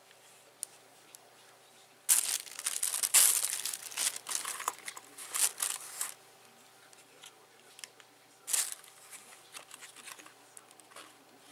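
Crinkly rustling and clicking handling noise in irregular bursts, strongest from about two to six seconds in and again near nine seconds, as camera sunglasses and their zippered hard-shell case are handled.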